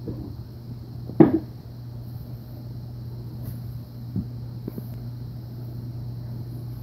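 A loud single thump about a second in, then a few fainter knocks, over a steady low hum.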